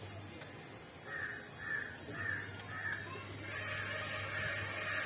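A crow cawing: a run of short caws about two a second starting about a second in, then a longer drawn-out call, over a steady low hum.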